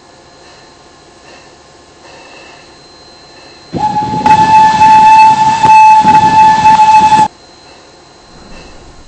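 Train whistle blowing one long, very loud blast of about three and a half seconds on a single steady high note, starting and cutting off abruptly.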